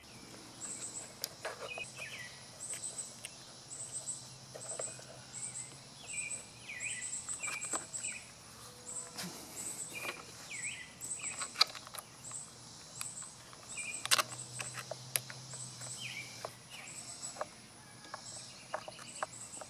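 Outdoor ambience: an insect chirps in a steady high-pitched rhythm and a bird gives short repeated calls. Over this come small sharp clicks and taps of a screwdriver and loose screws as a carburetor and its cover are fitted back onto a small engine.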